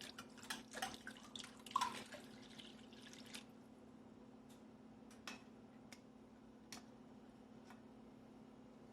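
Chicken stock poured from a can into a pan: a quick run of small splashes and drips for about three seconds, then a few single drips about a second apart. A low steady hum runs underneath.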